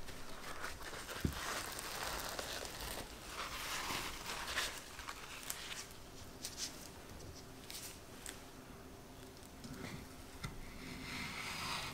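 Gloved hands pressing and patting a paper towel to blot orange slices, a soft papery rustle, followed by light handling clicks and a ceramic knife slicing through an orange slice on a wooden cutting board near the end.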